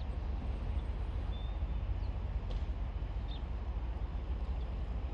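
Steady low rumble of wind on the microphone outdoors, with a few faint high chirps.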